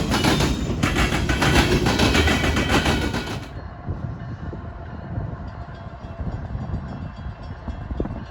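Train cars rolling past with a loud rattling clatter of wheels on rail. The clatter cuts off abruptly about three and a half seconds in, leaving a low rumble.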